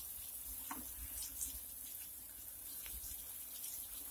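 Garden hose spray nozzle watering freshly dug soil: a steady hiss of several water jets landing on the earth, with a few faint ticks.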